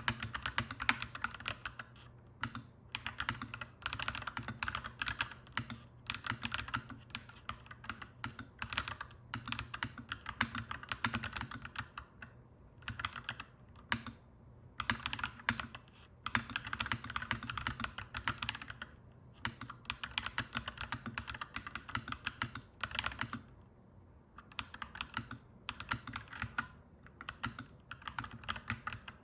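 Clacky mechanical keyboard being typed on in quick runs of keystrokes broken by short pauses, over a steady low hum.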